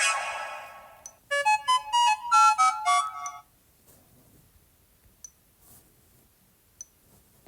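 Sony Xperia smartphone playing notification-tone previews through its speaker. A bright shimmering chime fades out over about a second. Then comes a quick two-second run of short melodic notes, followed by a few faint clicks.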